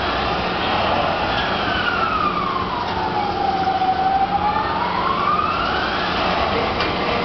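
Skymaster swinging-arm carnival ride's drive whining as the arms swing, its pitch sliding slowly up and down: highest as the arms sweep past level and lowest as they stand upright, about one rise and fall every five seconds. A steady low hum and general fairground noise run underneath.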